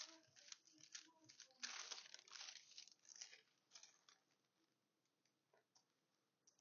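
Faint rustling and crinkling of paper and fabric being handled and smoothed flat by hand, in irregular bursts for about four seconds.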